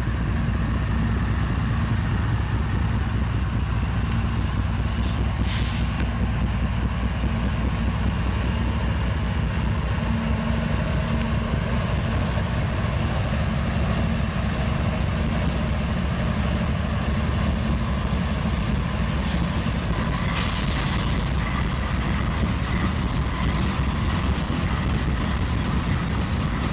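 Norfolk Southern GE diesel-electric locomotives, led by ES44AC 3674, rolling slowly past close by: a steady, loud engine drone with wheel and rail noise. Two short hisses cut in, about five seconds in and again around twenty seconds in.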